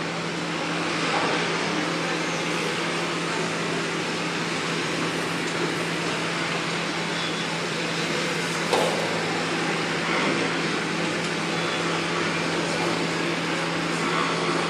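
Construction-site machinery running steadily: a constant low hum under an even din of machine noise, with a single knock about nine seconds in.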